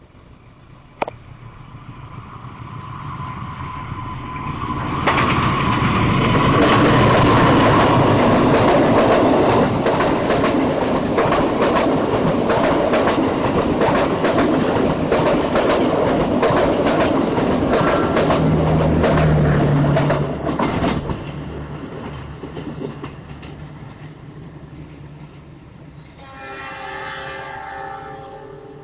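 Passenger train approaching and passing at speed, its wheels clattering rapidly over the rail joints, then fading away. Near the end a train horn sounds for about two seconds.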